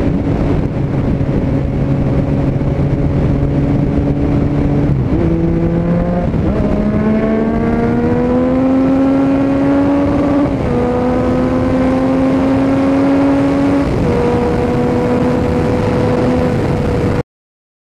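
Yamaha MT-09 inline-three engine running under way at road speed, heard from on the bike, with wind noise. The note steps up about five seconds in, then climbs steadily as the bike accelerates, dropping twice as it shifts up. The sound cuts off suddenly near the end.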